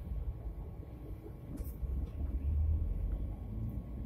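Low, steady rumble of a vehicle on the move, heard from inside the cabin, swelling louder for a while past the middle, with a faint click a little before halfway.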